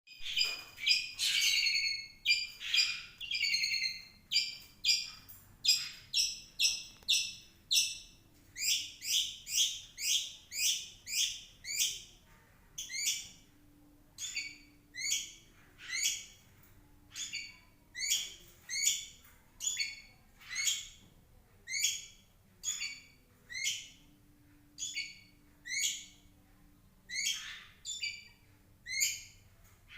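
Long-tailed shrike (cendet) singing, mimicking lovebird calls. A rapid run of loud, shrill chirps for the first eight seconds or so gives way to single sharp chirps repeated about once a second.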